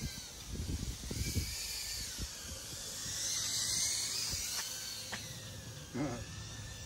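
Darwin FPV CineApe 25 quadcopter's propellers whining, the pitch rising and falling as it flies and growing louder around the middle. Low rumbling bumps in the first second or two.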